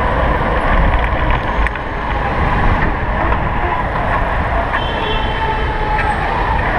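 Steady city traffic noise heard from a moving bicycle, with wind rumbling on the handlebar-mounted camera's microphone. A brief high squeal comes about five seconds in.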